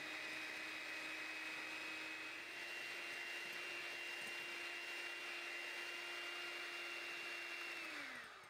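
Electric hand mixer running steadily, its beaters whipping egg whites to a foam for meringue. Near the end the motor whine drops in pitch and dies away as the mixer is switched off.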